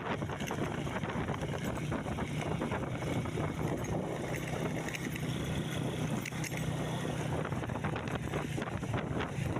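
A vehicle running steadily on the move, a constant low engine drone under wind rushing on the microphone, with scattered small rattles and clicks.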